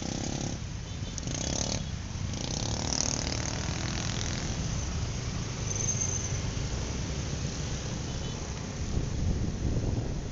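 Vehicle engine idling with a steady low rumble while stopped in traffic, with a few brief louder sounds in the first few seconds; about nine seconds in it gets louder and rougher as the vehicle pulls away.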